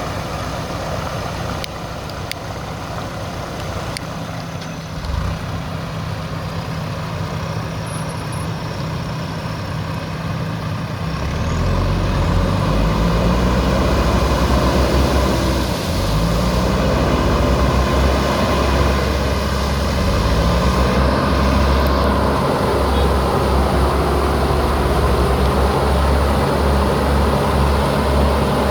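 JCB backhoe loader's diesel engine running at a steady pace, then revving up and working harder about eleven seconds in, and staying at the higher revs with some rise and fall.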